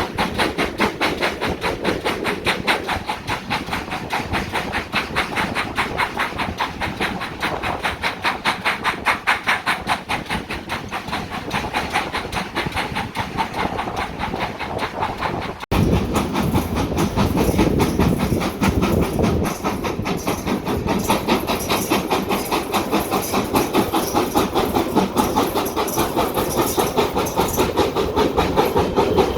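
GWR steam locomotive and train on the move, with a fast, even run of beats. The sound changes abruptly about 16 seconds in, where two recordings are joined.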